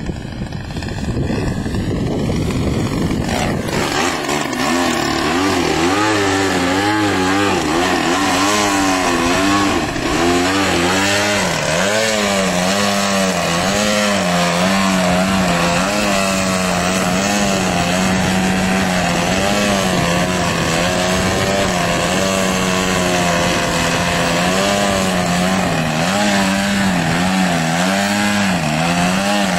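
DLE 55 single-cylinder two-stroke gas engine on a 3D aerobatic RC biplane, running on its stock muffler and turning a Vess propeller. Rushing noise covers it for the first few seconds. Then the engine is loud and close, holding the plane in a nose-up hover, its note rising and falling over and over as the throttle is worked.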